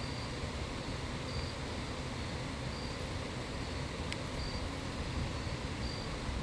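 An insect chirping, a single short high chirp repeated about every one and a half seconds, over a steady low background rumble, with one faint click about four seconds in.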